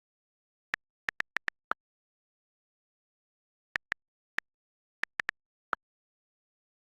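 iPhone on-screen keyboard click sounds while texting: two quick runs of key taps, about six then seven short, crisp clicks with silence between them.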